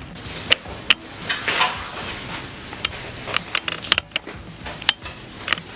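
Kitchen clatter: a string of sharp, irregular clicks and knocks of dishes and utensils being handled, with a drawer or cupboard knocking.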